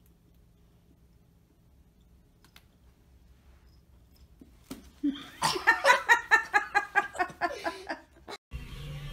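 A person laughing hard in a rapid run of pulses, about five a second, starting about five seconds in and cutting off suddenly near the end.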